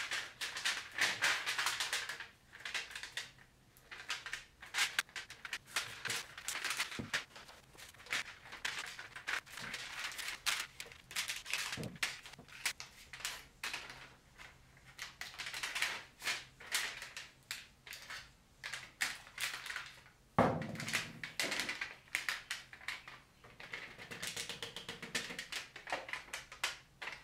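Stainless steel heat-treat foil crinkling and crackling in irregular bursts as it is folded and creased around a knife blade, with tin snips cutting through it. One sharper thump about two-thirds of the way through.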